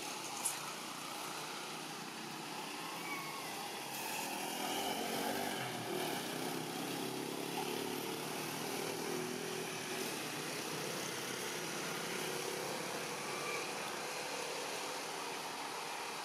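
Steady hum of a distant engine over outdoor ambience, growing a little louder about four seconds in.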